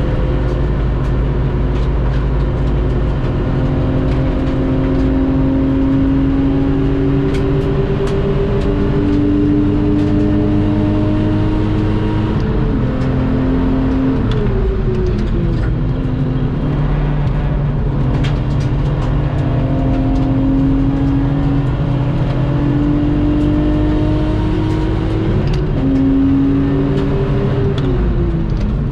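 Lexus IS200's engine under hard driving on track, its pitch climbing slowly as it pulls through a gear, stepping at gear changes and dropping away as the car slows around halfway and again near the end.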